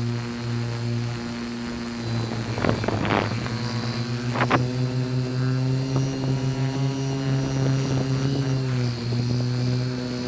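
Multirotor drone's motors and propellers humming steadily, the pitch rising slightly in the second half and dropping back near the end. A brief rush of noise comes about three seconds in and a short crack about a second and a half later.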